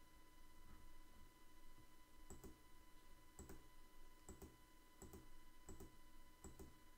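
Near silence broken by faint computer mouse clicks, in pairs about once a second from about two seconds in, as a notebook cell is run over and over.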